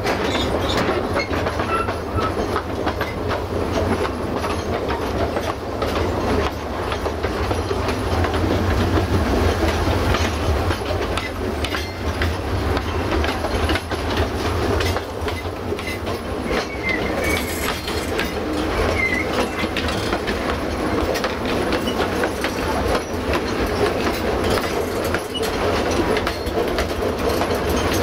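Narrow-gauge steam-hauled train rolling along the track: a steady rumble of wheels on rail with continual clatter and clicks.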